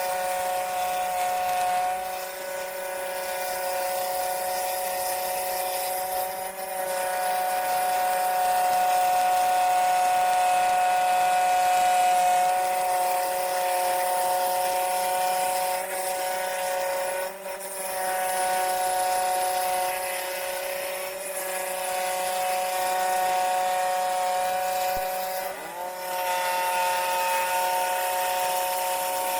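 Scroll saw running as it cuts through wood, a steady whining hum that dips briefly three times and shifts slightly in pitch near the end.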